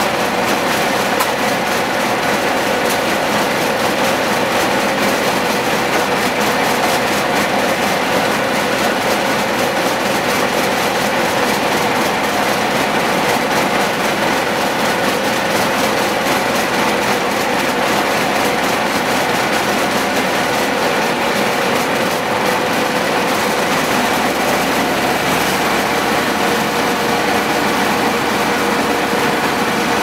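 A Number 1 Lane circular sawmill running, its large circular blade spinning under power from an International UD18 diesel engine while a log is sawn into boards. The mill and engine make a steady, loud mechanical noise with a constant hum.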